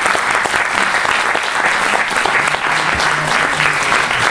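Audience applauding: many hands clapping in a dense, steady applause.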